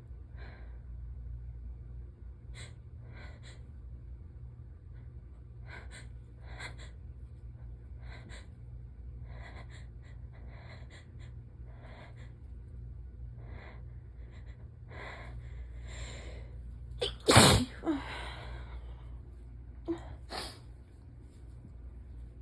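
A person sick with a cold-like illness takes a series of short sniffs and catching breaths, then lets out one loud, strong sneeze about three-quarters of the way through. A smaller sharp burst follows a few seconds later.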